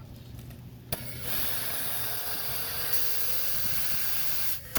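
Compressed air hissing steadily through an air chuck into a small lawn tractor tire as it is inflated, starting with a click about a second in and cutting off near the end.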